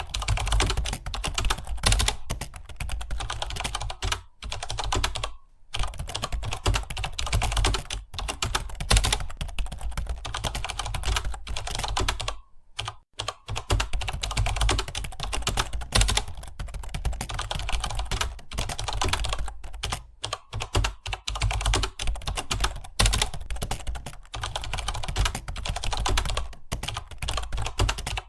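Fast continuous typing on a computer keyboard, a dense stream of key clicks broken by brief pauses, including one about five seconds in and a longer one near the middle.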